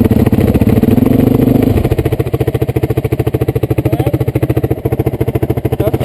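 Dirt bike engine running steadily under part throttle, then the throttle closes about two seconds in and it drops to a slow, even low-rpm beat.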